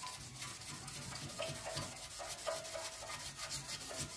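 Toothbrush bristles scrubbing back and forth on wet, toothpaste-coated glass in quick repeated strokes. The dried toothpaste is being worked to lift mould off the pane.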